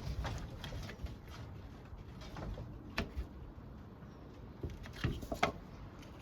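Squeeze clamp's handle being worked to test its repaired pivot: a few scattered clicks and knocks of the handle and jaw mechanism, the sharpest about three seconds in and a cluster near the end.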